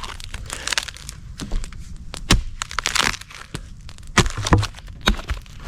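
Dry sticks and twigs being snapped and handled, with several sharp cracks, some carrying a low thump, and rustling and crinkling between them.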